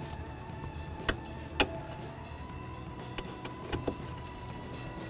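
Plastic wiring-harness connectors being handled under a car's dashboard: two sharp clicks about half a second apart near the start, then a few lighter clicks and taps later.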